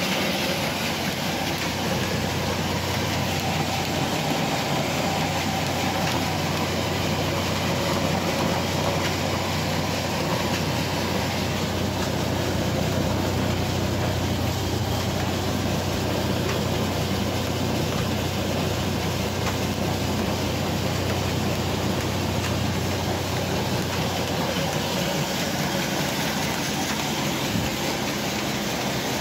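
Belt-driven commercial masala flour mills running steadily, with a constant low hum under a dense machine noise that does not change.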